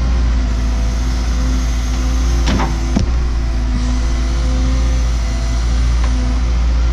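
Cat 314E excavator's diesel engine running steadily under work, with a brief falling squeal about two and a half seconds in and a sharp knock about half a second later.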